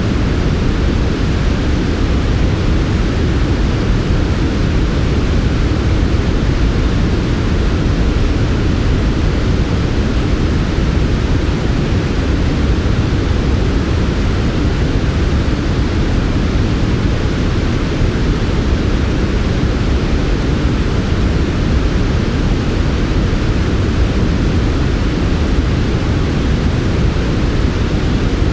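Steady, smooth synthesized sleep noise (white noise in the loose sense), an even rush weighted toward the low end with no changes or events.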